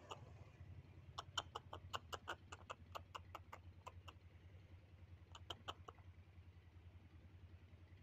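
A bird calling in a fast run of short, sharp notes, about five a second for some three seconds, then a brief second run of four notes a little later. Under it a faint, steady low engine hum.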